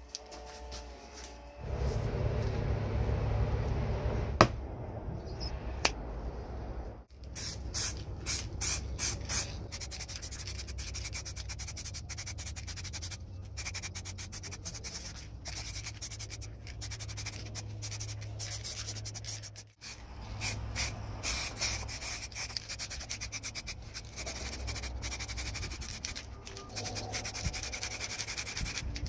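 Aerosol spray paint can hissing in many short bursts as metal parts are painted, over a steady low rumble.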